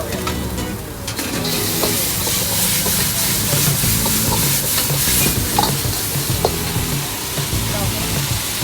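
Noodles being stir-fried in a hot wok: a steady sizzle that swells sharply about a second and a half in and eases off after about five seconds, with a few clinks of the spatula against the wok.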